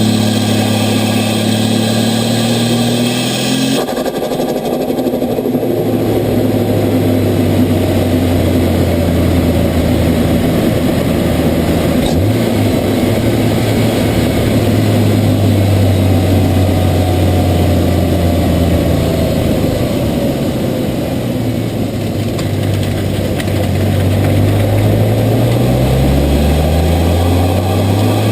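Turbocharged 4.0-litre inline-six of a Ford Falcon F6 Typhoon, heard from under the bonnet, running with its revs changing. The pitch drops about four seconds in, holds fairly steady, then climbs near the end as the engine revs up.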